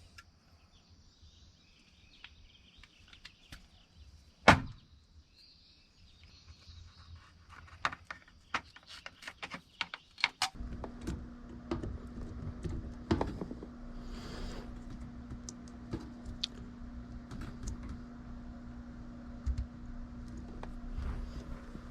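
Clicks and knocks of hands and tools working on an air handler, with one loud knock about four seconds in; about halfway through an electric motor starts and keeps running with a steady hum.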